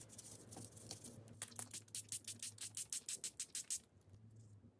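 Water brush dabbing quickly and lightly on paper, a rapid run of soft scratchy taps about seven a second, stopping near the end.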